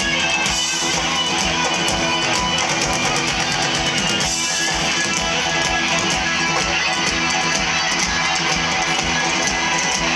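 Rock band playing live through a big PA, heard from within the crowd: electric guitar, bass and drums over a steady beat, with no singing in this stretch.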